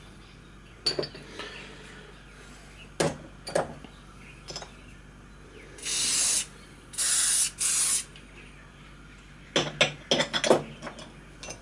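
Aerosol can of Loctite 7471 primer sprayed in three short hissing bursts about six seconds in, with a few clicks and knocks of metal parts being handled before and after.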